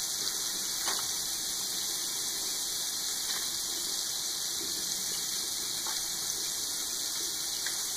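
A steady, even hiss, with a few faint soft taps.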